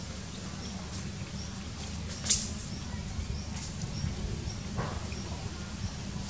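Outdoor ambience: a steady low rumble with faint high chirps repeating about every 0.7 seconds. A single sharp, high-pitched squeak cuts in a little over two seconds in, and a softer short sound follows near the end.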